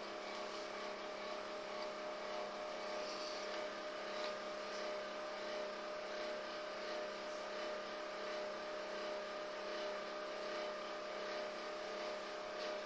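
Steady faint background hum and hiss with a constant thin tone, unchanging throughout.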